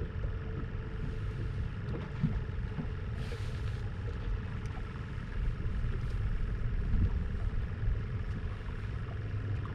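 A motor running steadily: a low rumble with a faint steady hum over it. A short hiss comes in a little over three seconds in.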